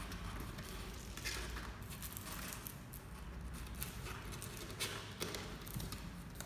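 Kittens clawing and scrabbling at a cardboard box: scattered scratches and light taps of claws and paws on cardboard, over a steady low hum.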